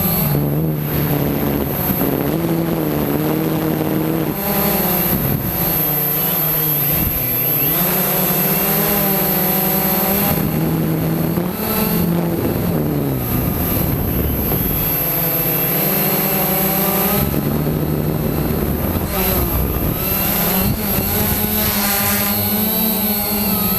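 Quanum Nova quadcopter's motors and propellers buzzing in flight, the pitch rising and falling again and again as the throttle changes.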